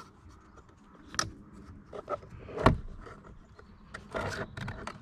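Plastic car interior trim being worked with a plastic trim lever: scattered clicks, scrapes and knocks, the loudest a knock just under three seconds in, with a cluster of clicks about four seconds in.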